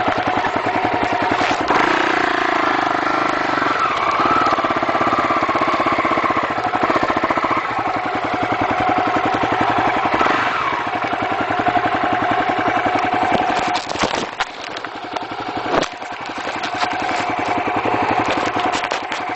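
250cc Honda motorcycle engine running under way, its pitch rising and falling with the throttle. A few sharp knocks about two-thirds of the way through, as the bike jolts over the rough dirt road.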